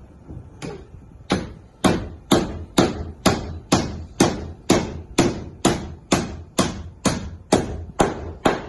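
Steady hammer blows, about two a second, each with a short ring, driving a steamed oak rib down into place in a wooden boat hull.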